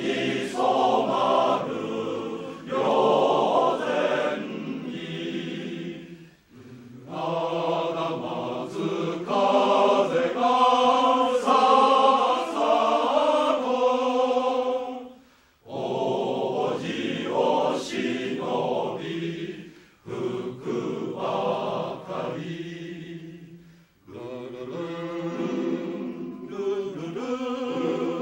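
A men's choir singing in parts, its sustained phrases broken by four brief pauses.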